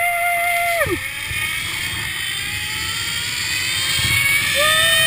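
Zip-line trolley pulleys running along a steel cable, a steady hiss of rushing air with a faint whine that climbs slowly in pitch as the rider speeds up. A held whoop sounds at the start and again near the end.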